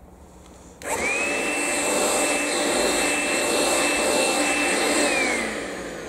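Makita DCL180 18V cordless stick vacuum switched on about a second in, its motor running with a steady high whine while it is used on a rug. It is switched off near the end, the whine falling as the motor winds down.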